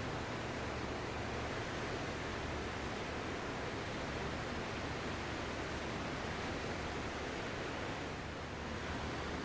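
Ocean surf: a steady, even wash of waves, dipping slightly in loudness near the end.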